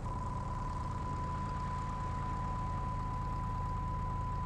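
Cessna 172 stall warning horn sounding a steady high-pitched tone, a sign that the wing is nearing the stall with 40 degrees of flaps. Under it is the low drone of the engine at idle power.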